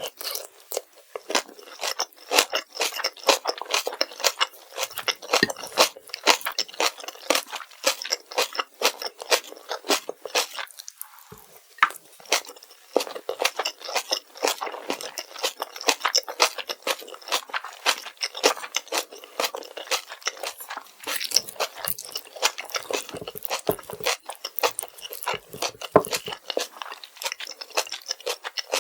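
Close-miked eating of kimchi fried rice: continuous wet, crunchy chewing, a dense run of small crackles and clicks with brief pauses.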